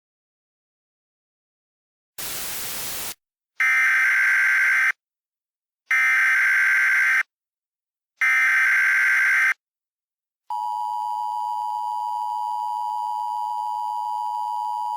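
A brief burst of static hiss, then three short bursts of Emergency Alert System digital header tones (SAME data), each about a second long with short gaps between. About ten seconds in, the steady two-tone EAS attention signal starts; it marks a new alert about to be read.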